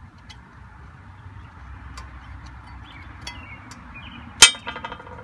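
Light clicks and taps of hands working on a John Deere 4440's air-conditioning compressor and its belt. About four seconds in comes one sharp metallic clank that rings briefly.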